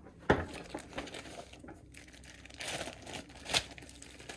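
A sharp knock about a third of a second in, then a plastic bag of fishing tackle crinkling and rustling unevenly as it is handled.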